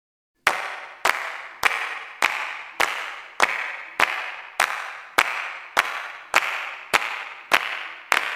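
A sharp percussive hit with a ringing, decaying tail, repeated at an even pace about every 0.6 s, fourteen times.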